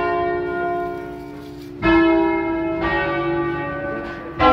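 Church bells from a five-bell peal, cast by the Barigozzi brothers of Milan in 1940 and tuned in C, rung by hand with ropes and heard from inside the bell tower. Single bells sound one after another, each strike ringing on and slowly fading: one is already ringing at the start, a new loud strike comes about two seconds in, a softer one a second later, and another loud strike near the end.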